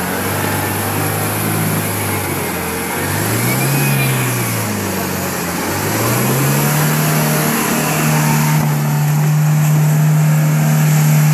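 Mahindra Thar's engine revving under load as the jeep pushes through deep mud ruts. The pitch rises and dips a few seconds in, then climbs and holds high and steady.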